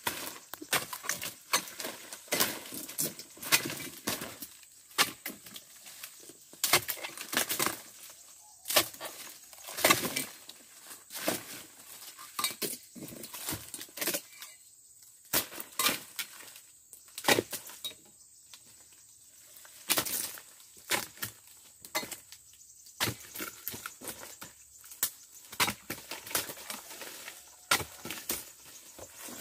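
Oil palm fronds being cut off with a dodos, a chisel blade on a pole: irregular sharp chopping strikes into the hard frond bases, about one or two a second, with the fronds rustling and splintering.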